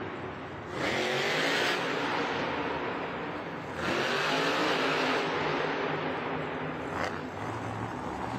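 Monster truck's supercharged V8 engine revving hard twice, about a second in and again about four seconds in, with rising engine pitch over noise. A short sharp crack near the end.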